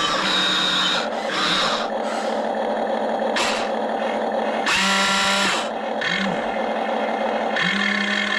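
Small electric motors of a toy RC excavator whining, in runs that start and stop as its functions are worked.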